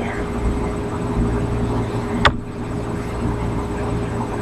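Steady low electrical hum and hiss with a faint steady tone: the background noise of a webcam's microphone. One sharp click a little over two seconds in.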